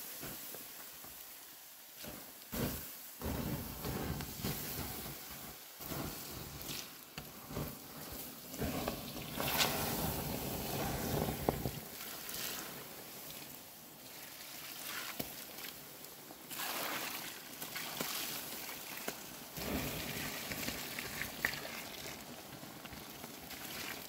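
Water poured from a plastic bucket onto hot coals in a stone fire pit, splashing and sizzling as it douses the fire, in uneven surges.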